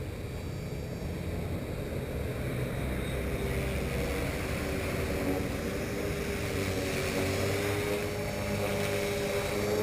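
Align T-Rex 450 Pro electric RC helicopter in flight: the steady whine of its brushless motor and spinning rotor, wavering slightly in pitch and rising a little near the end.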